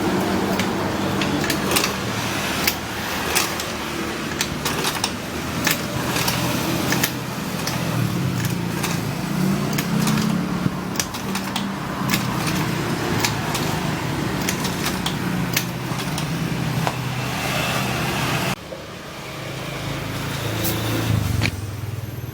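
Honda Vario Techno 110 scooter's single-cylinder four-stroke engine running steadily, with many sharp clicks over it. It swells briefly around eight to eleven seconds in, and the sound drops off suddenly near the end.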